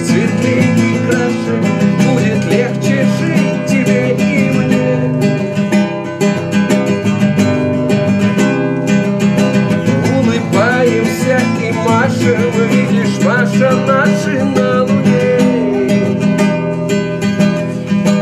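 A man singing to his own acoustic guitar accompaniment, the guitar played steadily throughout.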